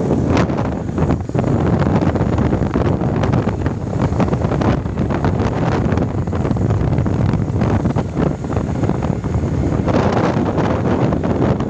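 Loud wind buffeting the microphone of a camera riding on a moving motorcycle, a steady rushing flutter with the road noise of the ride beneath it.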